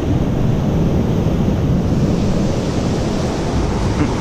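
Steady wind rumbling on the microphone over the wash of surf on the beach.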